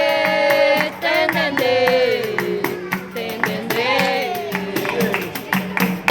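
Capoeira song: voices singing long, sliding notes over a steady percussion beat with jingling strikes, fading lower toward the end.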